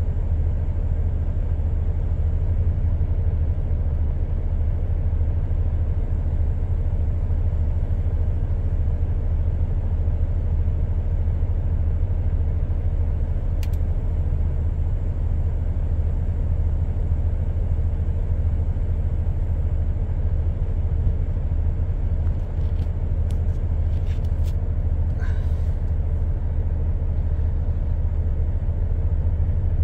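A truck engine idling, heard from inside the cab as a steady low rumble. A few faint clicks and a brief squeak come near the end.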